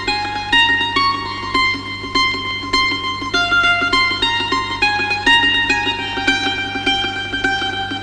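Background music: a plucked-string melody of quick, separate notes over a steady low drone.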